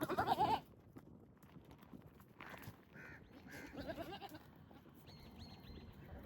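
A goat bleating: one loud, wavering bleat at the start, then a quieter bleat about four seconds in.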